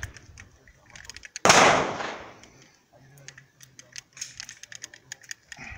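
A single shot from an IMI Desert Eagle pistol about a second and a half in, with a long echoing decay. It is followed by a run of metallic clicks as the pistol is handled: a light, limp grip let the pistol flip up, and it jammed.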